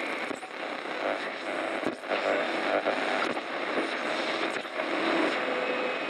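Intro theme music for a show opening: a dense, noisy texture with a few sharp percussive hits, and a steady held note coming in near the end.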